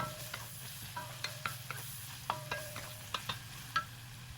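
Bacon sizzling in an iron wok as it is stirred, with irregular clinks and scrapes of the utensil against the wok, several ringing briefly. A steady low hum runs underneath.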